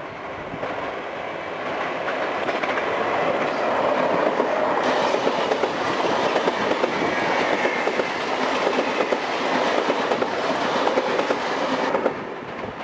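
Electric multiple-unit commuter train passing close by, its steel wheels clattering over the rails. The sound builds as the train draws near, holds loud while the cars go past, and drops off sharply near the end as the last car clears.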